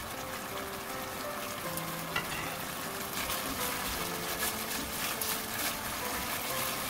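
Thick red gochujang-and-ketchup sauce sizzling in a nonstick pan while a silicone spatula stirs and scrapes through it.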